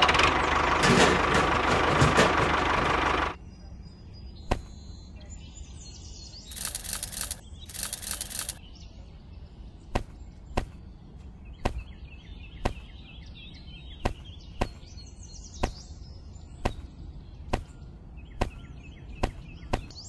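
A loud rushing noise for about the first three seconds, cutting off suddenly. Then a string of short sharp taps, roughly one or two a second at uneven spacing, as dried kidney beans are dropped one at a time into furrows of sand.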